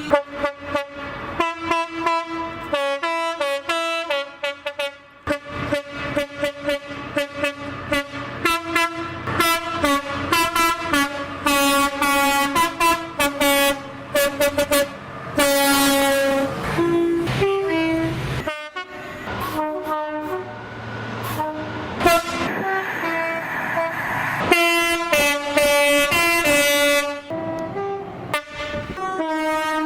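Rapid-fire montage of British train horns: dozens of short blasts cut back to back, switching between high and low tones, with a few longer held blasts. The rushing noise of a passing train runs under some of them near the middle.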